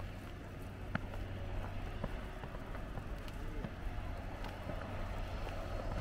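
Footsteps crunching in fresh snow, with scattered faint ticks, over a steady low rumble.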